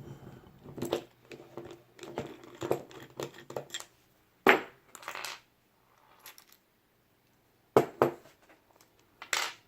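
Small steel parts of an ACE A527 hardened-steel round-body padlock being worked apart with a Phillips screwdriver. A run of small metal clicks and scrapes is followed by a few sharp metallic clinks: one about halfway through, a pair a little later and one near the end.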